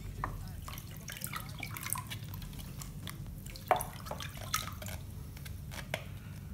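Water splashing and dripping in a plastic bucket as a plastic bottle is dunked, filled and lifted out with water pouring back, diluting a hydrochloric-acid rust-removal bath. Scattered small drips and plastic ticks, with one louder splash a little before the middle.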